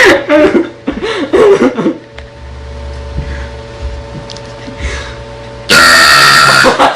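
A girl burps once, loudly, for about a second near the end. Short bits of voice with rising and falling pitch come in the first two seconds.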